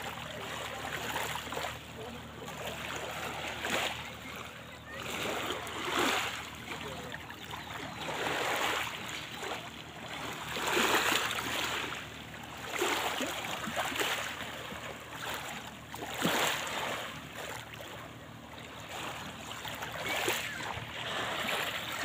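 Small waves lapping and washing onto a pebble shore, a soft rush that swells and falls back every two seconds or so.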